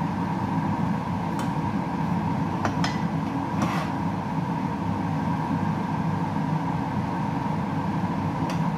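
Kitchen range-hood exhaust fan running steadily, with a few light clinks of a metal spatula against the wok and plate.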